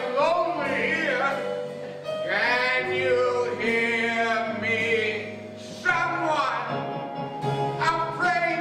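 A man singing a slow ballad solo over instrumental accompaniment, with long held notes.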